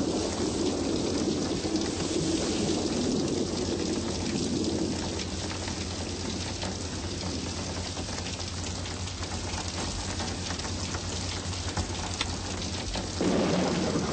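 Steady heavy rain falling, with a low rumble of thunder that fades over the first few seconds and another low swell about a second before the end.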